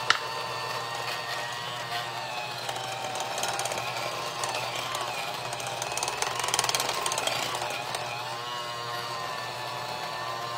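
Old electric hand mixer running, its beaters whirring through cake batter in a glass bowl as milk is poured in; a steady motor whine that wavers a little, with one sharp clack right at the start and a louder, rougher stretch a little past the middle.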